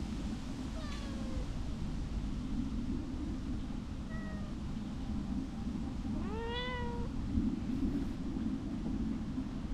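A cat meowing three times: a short falling meow about a second in, a brief one around four seconds, and a longer rising meow a couple of seconds later, over a steady low rumble.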